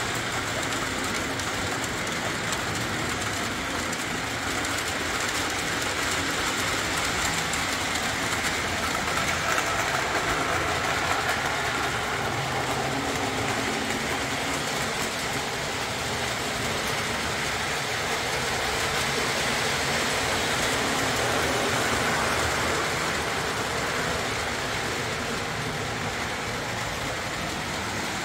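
Lionel O-27 Alco diesel model train running on three-rail track: a steady whir of motor and wheels on the rails, growing a little louder twice as the train passes nearer.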